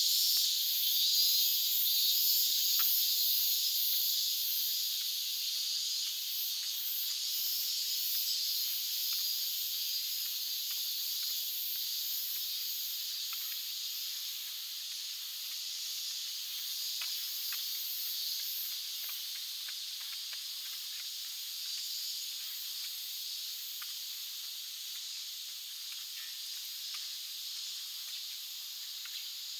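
Summer cicadas buzzing in chorus, a steady high-pitched shrill drone that grows gradually fainter.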